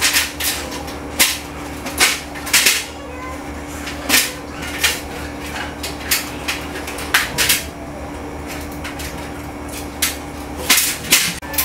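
Irregular clicks, knocks and light clatter of plastic and metal parts being handled as a vintage Victor camcorder is taken apart: connectors unplugged and circuit boards lifted out over a metal tray. A steady low hum runs underneath.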